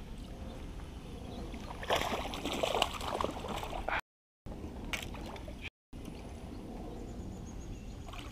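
Water splashing and sloshing against a kayak, with a rougher burst of splashing about two seconds in and another brief one near five seconds. The sound drops out to dead silence twice near the middle.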